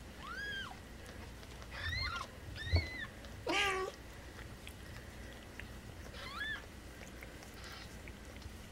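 Newborn kittens mewing: about four short, thin, high-pitched arched cries, with one lower, louder meow about three and a half seconds in. A short thump comes just before the three-second mark.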